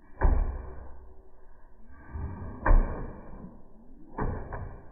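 Rising whooshes, each ending in a sharp thump: four thumps, the loudest about midway, with two close together near the end.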